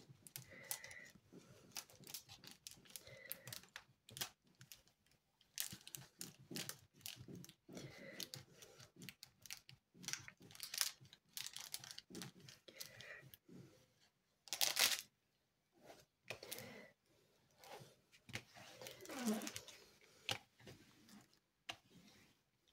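Clear plastic protective film on a diamond-painting canvas crinkling and rustling as a plastic scraper is pushed over it and fingers press it down. It comes in irregular strokes, with a couple of louder scrapes partway through.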